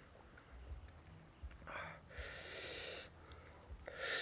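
A person's noisy breaths close to the microphone: one long breath about two seconds in and a shorter one near the end.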